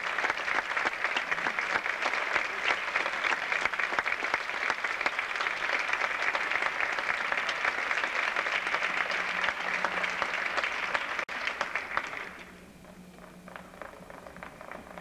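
Theatre audience applauding, a dense steady clapping that dies away suddenly about twelve seconds in, leaving a few scattered claps.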